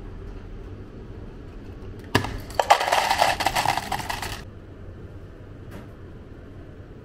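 Hoshizaki ice dispenser dropping ice cubes into a plastic cup: a dense clattering rattle of ice that starts about two seconds in, lasts about two seconds and stops suddenly.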